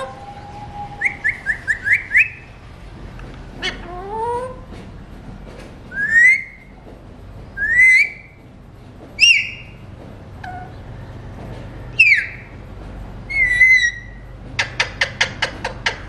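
Alexandrine parakeets calling: a series of short, rising whistled calls, with a quick run of about five short notes near the start and a faster run of about ten near the end.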